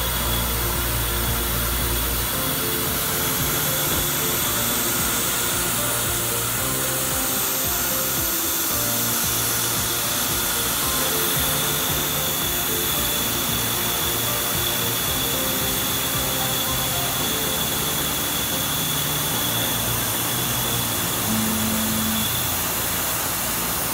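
Background music laid over a Tormach PCNC 770 CNC mill's end mill cutting a metal bar, heard as a steady high whine and cutting hiss under the melody.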